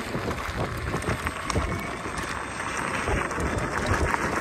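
Wind buffeting the microphone over the crunch and rattle of an electric unicycle's tyre rolling fast over a gravel track, with a steady low rumble and many small irregular clicks.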